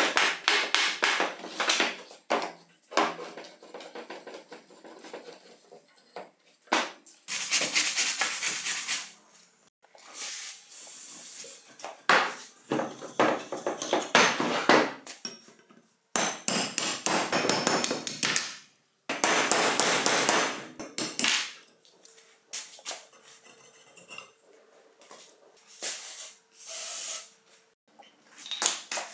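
Wooden mallet knocking on the rusty steel frame and rods of a chisel mortiser to drive the parts apart, in bursts of rapid knocks with short pauses between. Loose metal parts clink as they are handled.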